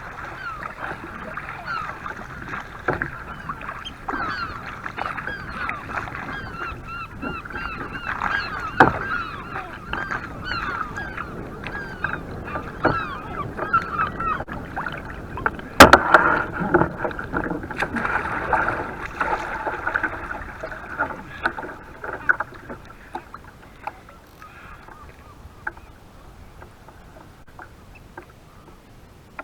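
A gull colony of herring gulls and lesser black-backed gulls calling over and over, many birds at once, thinning out after about 22 seconds. A single sharp knock about 16 seconds in is the loudest sound.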